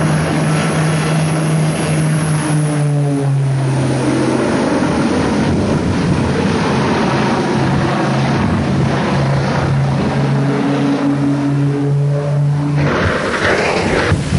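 Twin-engine propeller airplane's engines droning loudly in a low pass, fading in the middle and growing loud again. About thirteen seconds in, the engine drone stops and gives way to a rush of noise as the plane hits the ground.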